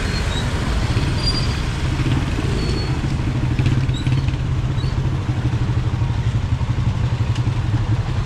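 Street traffic: a motor vehicle engine runs close by with a steady, pulsing low rumble, and a few short high chirps sound in the first half.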